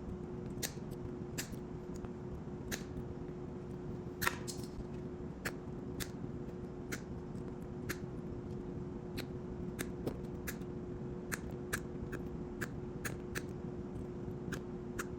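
Side cutters snipping away at a turn signal's plastic mounting nut to trim it down: a long string of sharp, irregular clicks, one every half second or so. A steady low hum runs underneath.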